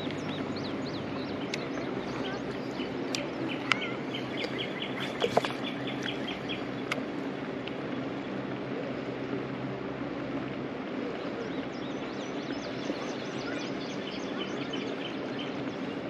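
Steady rush of river water flowing over a shallow, rocky bed, with birds calling over it and a rapid run of chirps about four seconds in. A few sharp clicks stand out, the loudest about five seconds in.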